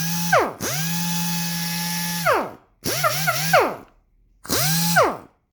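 Pneumatic square double-action sander run in four short bursts of air, each spinning up with a rising whine over a hiss of exhaust air and winding down when released. The longest run lasts about two seconds; in the third burst the pitch wobbles up and down.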